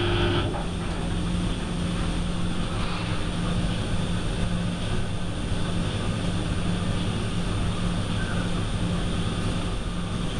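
Hotpoint Aquarius WMF70P washing machine running with a steady mechanical hum and rumble; a higher whine cuts out about half a second in.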